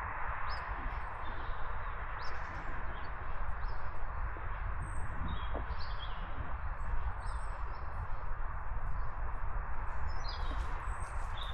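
Small woodland birds calling, with many short, high chirps scattered through, over a steady hiss of background noise.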